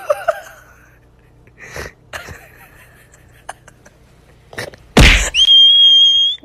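A sudden loud sneeze about five seconds in, followed by a steady high-pitched tone lasting about a second; before it, only a few faint clicks.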